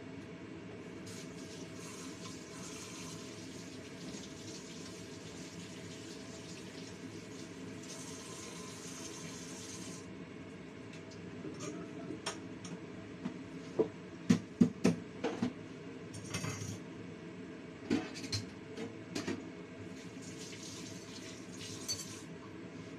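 Water with pork trotter and chicken pieces boiling in a wok over a gas burner: a steady rush with a higher hiss through the first half. From about halfway in come sharp clinks and knocks, loudest about two-thirds of the way through, then a few more near the end.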